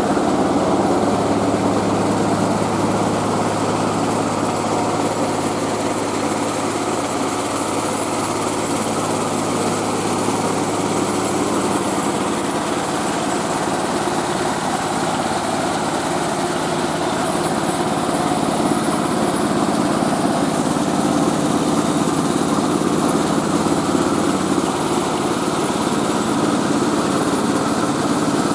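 Mobile rice milling machine running steadily, its engine and mill droning without a break; the low engine hum eases somewhat about halfway through.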